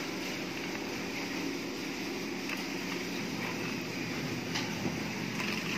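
Steady background hum and hiss of a running machine, with a few faint clicks.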